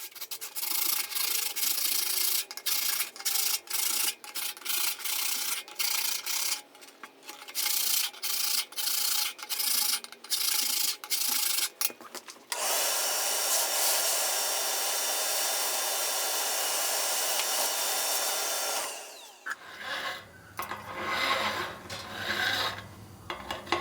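A hand-held cutter scraping a wire groove into soft insulating firebrick. At first it goes in quick separate strokes, about two a second. Past the middle it becomes a steady, unbroken rasp for several seconds, and near the end a choppier, lower scraping.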